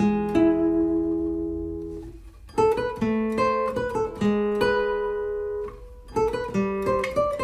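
Acoustic guitar music: plucked chords and notes that ring out and fade, with new chords struck about two and a half seconds in and again near the end.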